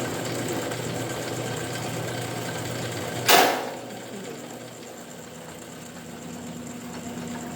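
Angle-iron cutting machine running with a steady hum, then one loud sharp bang about three seconds in as it cuts through the steel angle; afterwards the machine hums on more quietly.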